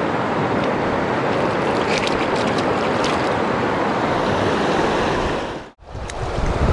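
Steady rush of river water, with a few faint clicks about two to three seconds in. Near the end the sound cuts out suddenly and comes back with more low rumble.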